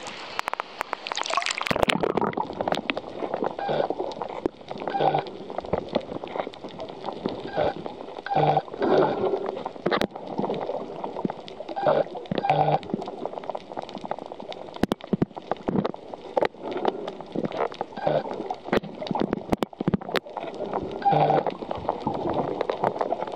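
Water splashing against the camera at the surface, then about two seconds in it goes under and the sound turns muffled: underwater gurgling with scattered sharp clicks and short low burbles.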